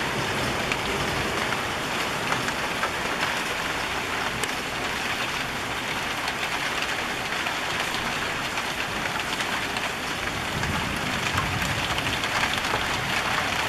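Steady rain falling over rooftops, a dense even hiss with many small drop ticks. A low rumble swells in underneath about ten seconds in.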